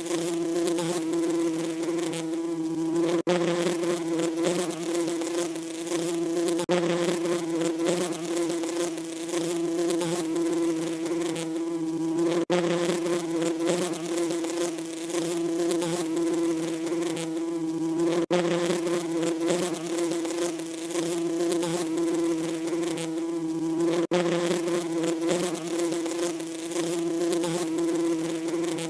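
Bees buzzing: a steady, even-pitched hum over a hiss, with brief dips in level every few seconds.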